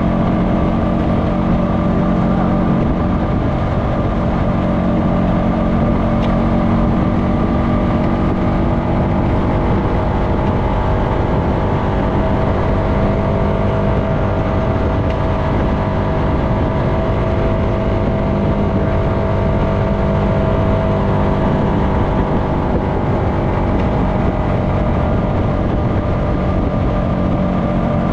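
Honda FourTrax Foreman ATV's single-cylinder engine running steadily at cruising speed, its note drifting only slightly up and down, with tyre and wind noise underneath.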